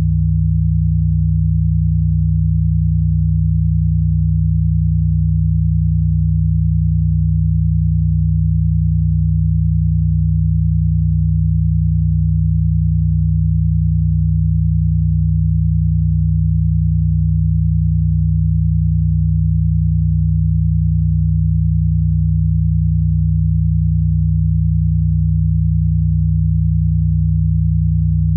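Steady low-pitched electronic sine-tone drone, a 'healing frequency' tone held without change.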